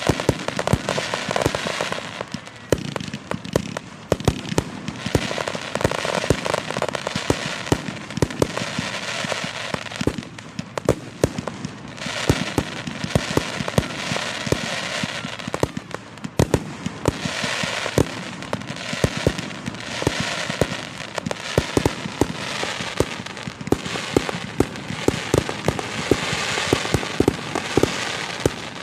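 Fireworks display heard from close by: a dense, continuous crackling of many small sharp pops and bangs, swelling and easing in waves every few seconds.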